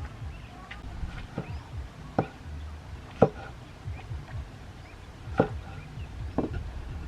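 A knife chopping food on a cutting board: several separate, sharp chops spaced irregularly, about a second apart.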